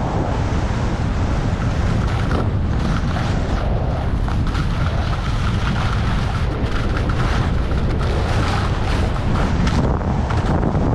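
Wind buffeting the action camera's microphone as the skier descends at speed, a constant low rumble. Over it, the hiss and scrape of skis on chopped-up piste snow comes and goes with the turns.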